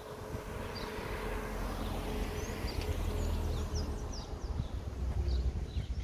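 Outdoor street ambience: a low rumble swells over the first few seconds and eases toward the end, with a scatter of short, high bird chirps.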